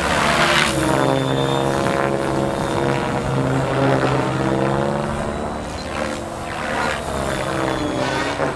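Mikado Logo 600 electric RC helicopter on 12S power flying overhead: the drone of its main rotor with the electric motor and gear whine, the pitch rising and falling as it manoeuvres. There are louder rushing swells near the start and again about six to seven seconds in.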